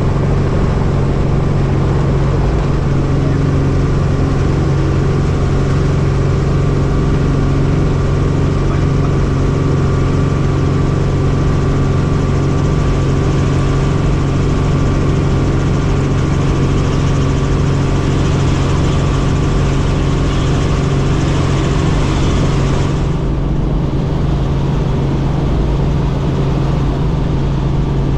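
Light helicopter's engine and rotor running at flight power, heard from inside the cabin as a loud, steady drone with a hiss on top, through lift-off from the pad and the climb away. About 23 seconds in, the high hiss drops away suddenly while the low drone carries on.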